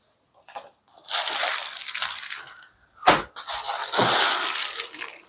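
Crinkly rustling of sarees being handled and unfolded, in two stretches, with a single sharp knock about three seconds in.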